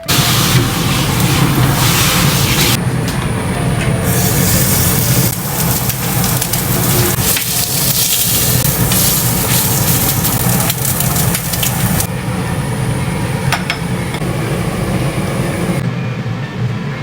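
Food sizzling on a stove, a loud, dense hiss that swells and eases, over a steady low hum.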